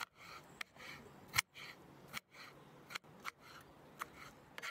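Chef's knife chopping a roasted jalapeño on a plastic cutting board: about eight sharp knife taps on the board at an uneven pace, with softer slicing strokes between them.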